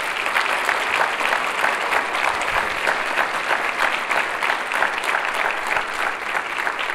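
A large audience applauding, a steady round of many hands clapping at once.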